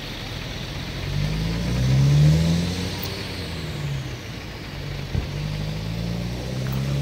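A motor vehicle engine running steadily, rising in pitch and loudness about two seconds in, then easing back to a steady hum. A single sharp click about five seconds in.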